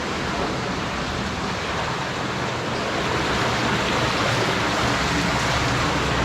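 Steady rush of falling water in a cave, a continuous even roar with no breaks.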